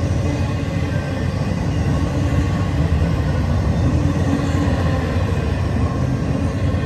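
Freight train of empty intermodal well cars rolling past at speed: steady, unbroken noise of steel wheels running on the rails.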